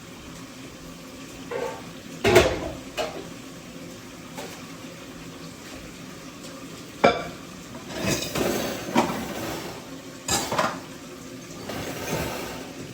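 Pots, pans and utensils clattering: a series of separate knocks and clinks, with a longer rattling clatter partway through.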